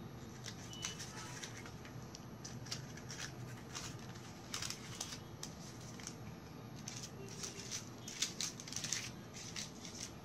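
Pleated paper cupcake liners crinkling and rustling as they are handled, in soft scattered ticks that come in busier clusters about halfway through and again near the end.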